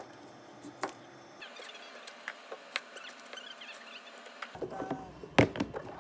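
Kitchen knife cutting cucumbers against a plastic cutting board: scattered sharp knocks and small crackling ticks, with one loud knock near the end.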